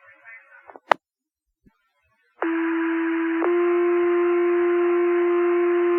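Two-tone sequential paging tones over a fire dispatch radio channel, with radio hiss behind them, setting off the fire department's pagers: a first tone of about a second, then a longer second tone. A short radio click comes about a second in, before the tones.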